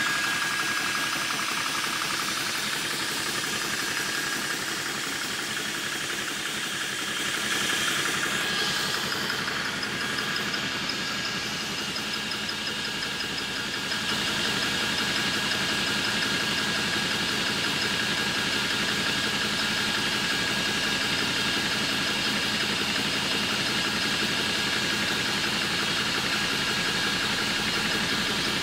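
Apolo 300 bar portable high-pressure air compressor running steadily while it fills a PCP air rifle, the pressure climbing toward 300 bar. It gets slightly louder about halfway through.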